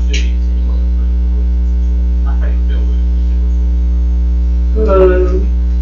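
Loud, steady electrical mains hum in the recording. Faint voices are briefly audible about two seconds in, and a short spoken sound comes near the end.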